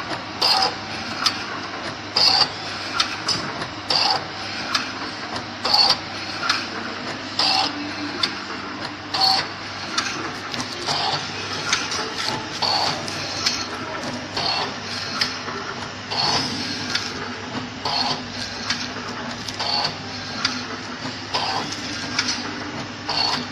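Automatic powder sachet packaging machine running, with a sharp mechanical clack about every second and three-quarters, smaller clicks between them, and a steady low hum underneath.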